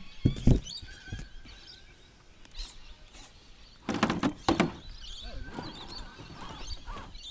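Knocks and scuffs of a radio-controlled rock crawler's tyres and chassis on sandstone, a couple about half a second in and a louder cluster around four seconds, with birds chirping in the background.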